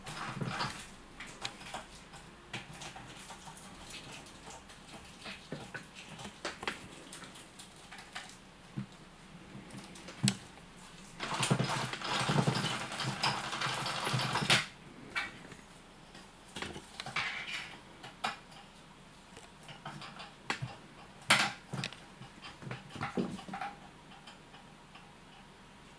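A British Shorthair kitten playing with a plastic butterfly cat toy on a tabletop: scattered knocks and clatters of paws and plastic against the hard surface, with a few seconds of dense scrabbling and clattering about halfway through.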